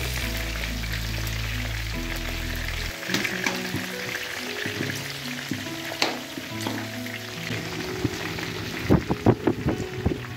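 Pork pieces sizzling steadily as they fry in rendered lard in a large metal wok, the fat bubbling as it renders out. A metal skimmer scrapes and clinks against the pan, with a quick run of loud metal knocks near the end.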